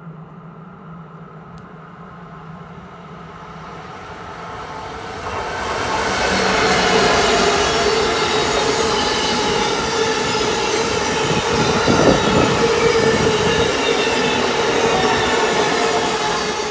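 An Amtrak train hauled by an ACS-64 electric locomotive passes at speed. Its sound rises about five seconds in to a loud, steady rush of coach wheels on the rails with a ringing tone, then begins to fade near the end.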